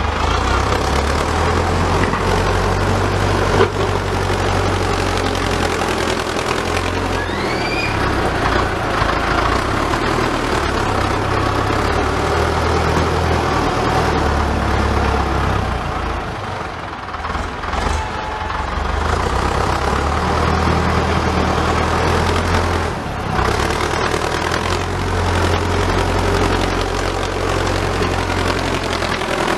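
Farm tractor's engine running as the tractor works a front dozer blade through a soil pile. The engine's drone swells and drops every few seconds as the load comes and goes.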